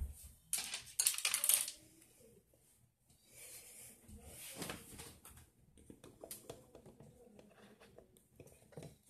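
Scratchy rubbing and scraping, loudest for about a second near the start, with light clinks and knocks of toiletry bottles and a hairbrush on a bathroom counter.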